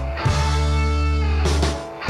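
Background rock music with guitar, held chords changing about every second and a half.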